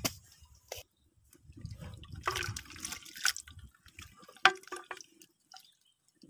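Ladle stirring jackfruit and coconut-milk gravy in a clay cooking pot: intermittent sloshing and dripping of liquid, with a few sharp knocks of the ladle against the pot.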